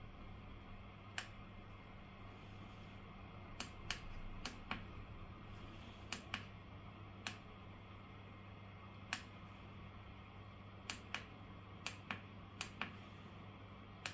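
Small tactile push-buttons on a 3D-printed desktop fan's control panel clicking about fifteen times at irregular spacing, often in quick pairs.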